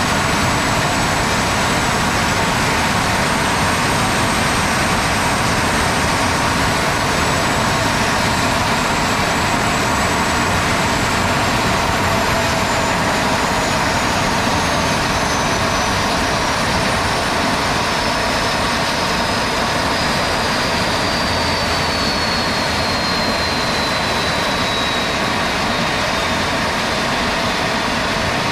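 Homemade twin-turbo furnace running with a steady, loud roar, a thin high whine above it that slowly drops in pitch over the second half.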